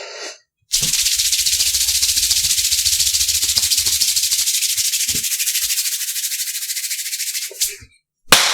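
A fast, even shaker-like rattle of music, with a low hum under it for its first few seconds; the rattle cuts off shortly before the end.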